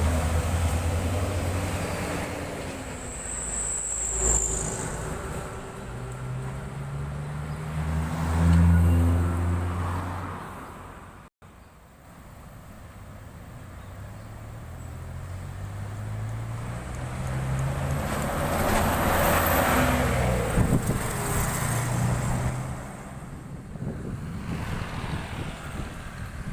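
Large diesel buses passing on the highway, their engines pulling hard and rising in pitch, with tyre and road noise. The sound breaks off sharply about eleven seconds in, then a second pass builds up in the same way.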